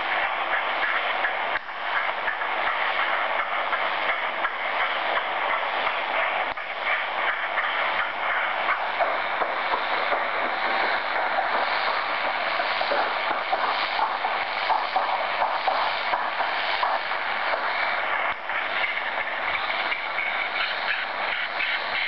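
A shortwave receiver in SSB mode tuned to the 8710 kHz marine phone channel plays an unidentified signal through its speaker: a steady, rapidly fluttering hiss like a leaky gas valve or very fast breathing, with no voices.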